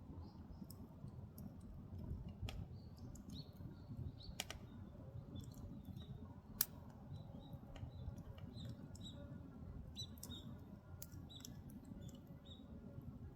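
Firewood burning in a traditional Korean agungi fireplace: a low steady rumble of the fire with scattered crackles and pops, the sharpest about six and a half seconds in. Short high squeaky chirps come and go throughout.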